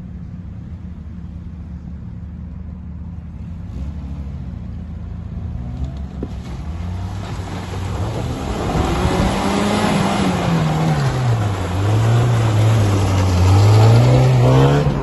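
Small 4x4 SUV's engine driving up a muddy, snowy track toward the listener, growing louder as it approaches. The engine revs up and eases off and revs up again in its second half, and is loudest as it passes close by near the end.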